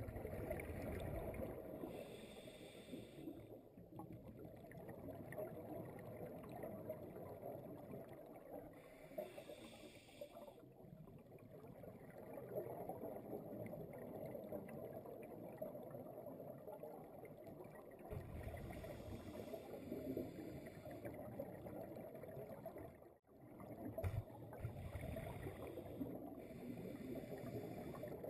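Muffled underwater noise heard through a camera housing, with scuba regulator exhaust bubbles hissing and bubbling out in four bursts, one every seven to eight seconds, as a diver breathes out.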